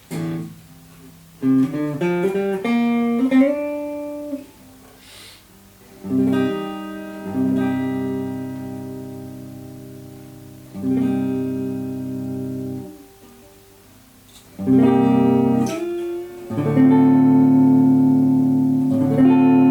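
Replica Gibson Les Paul electric guitar on its neck pickup, played through a Vox amp with the bass set heavy. A quick run of single notes is followed by several chords, each left to ring and fade.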